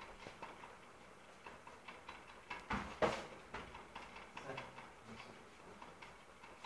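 A cricket ball knocking on a hard floor: two sharp knocks close together about three seconds in, with a few faint taps and low room noise around them.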